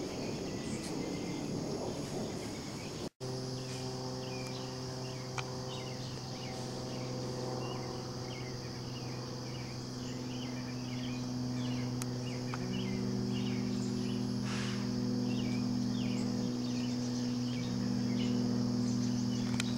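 Insects chirping steadily, with many short repeated chirps over a constant high drone and a brief dropout about three seconds in. After the dropout, steady low held tones sound underneath and shift in pitch a couple of times.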